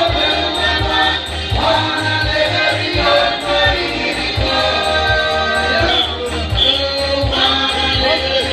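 Men's choir singing a gospel song over a steady deep beat.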